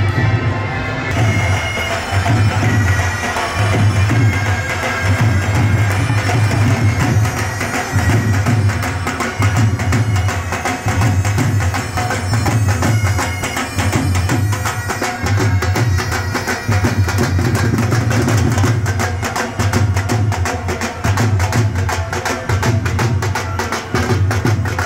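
A pipe band playing: bagpipes over snare and bass drums, with the drumming growing denser and crisper about halfway through.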